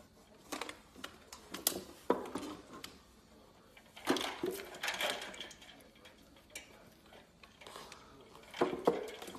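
Ice cubes clinking and rattling in a stainless-steel bowl of water as a puppy noses into it, in irregular bursts of short knocks against the metal. The rattling is busiest about four to five seconds in.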